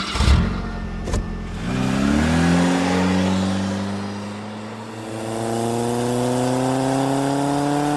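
A motor vehicle engine with a sharp click about a second in; around two seconds in the engine note jumps up, then its pitch climbs slowly and steadily, as when accelerating.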